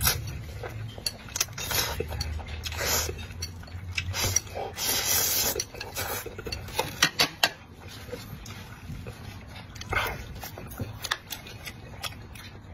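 Close-miked eating sounds: a person slurping and chewing noodles, with many short clicks and smacks and two longer hissing slurps about three and five seconds in.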